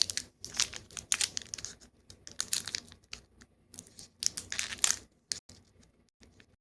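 Foil wrapper of a Pokémon trading card booster pack crinkling in short, irregular bursts as it is handled.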